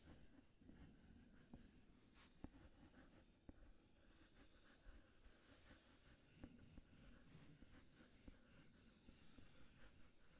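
Faint tapping and scratching of a stylus on a tablet screen while drawing: many short ticks and brief strokes.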